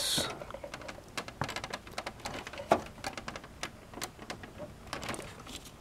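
Hands working a plastic cable connector onto the back of a DVD-ROM drive inside a desktop computer case: scattered small clicks, taps and rustles, with one sharper click about three seconds in.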